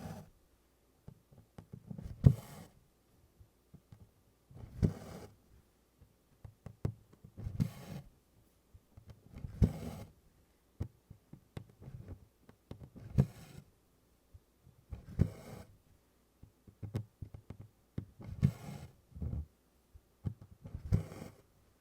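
Embroidery needle and cotton floss being pulled through 24-count Congress cross-stitch cloth, tent stitch by tent stitch: a short rasp of thread through the fabric with a soft tap, repeating about every two to three seconds.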